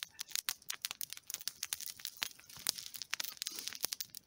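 Open wood campfire crackling, with quick irregular pops and snaps.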